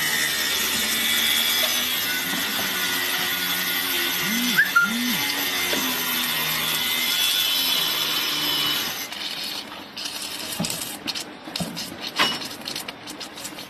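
Electric arc welding on a lapped steel reinforcing-bar joint: a steady hissing crackle that stops about nine seconds in, followed by scattered clicks and taps.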